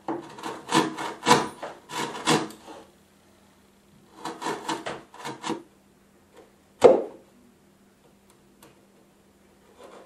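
A hand tool cutting into wood for a lock mortise: quick scraping strokes at about three a second in two runs, then one louder single stroke about seven seconds in.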